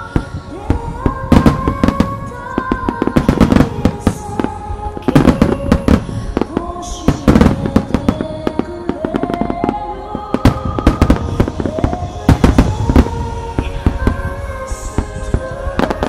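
Fireworks shells bursting one after another in sharp, loud bangs, heard over slow melodic music that accompanies the display.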